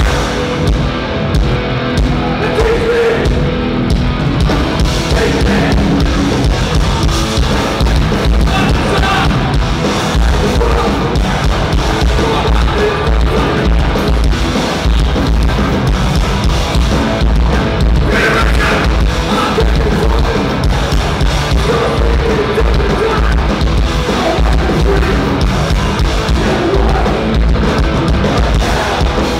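Hardcore punk band playing live: distorted electric guitars and a pounding drum kit, with shouted vocals over them.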